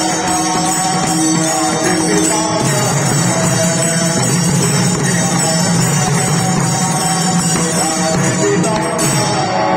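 Music: a sustained melody over steady held tones, with jingling percussion.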